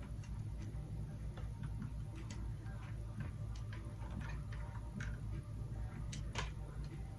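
Scattered light clicks and taps from the parts of a ring light and its tripod stand being handled and adjusted, over a steady low hum. Two sharper clicks come about six seconds in.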